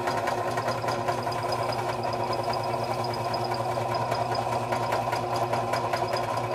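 Bench drill press running steadily with an even motor hum, its bit being run down to start drilling out a broken-off bolt.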